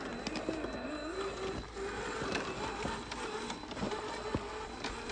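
Cross RC Demon scale crawler's electric motor and gearbox whining as it drives, the pitch wavering up and down with the throttle, with scattered sharp clicks.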